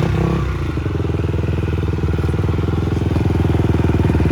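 Dirt bike engine running steadily at a constant pitch, under power during a race.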